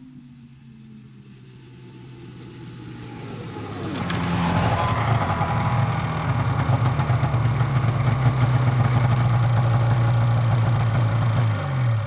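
Polaris 440 snowmobile's two-stroke engine approaching fast, growing louder over about four seconds. It then pulls up alongside and runs steadily and loudly close by, with a brief change in pitch near the end.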